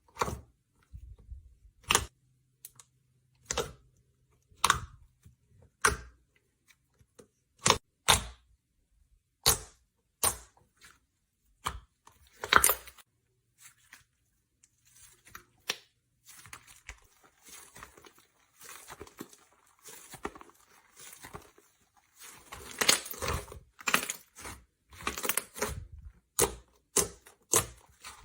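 Slime being pressed and squeezed by hand, giving sharp wet pops every second or two, then a denser run of crackling in the second half.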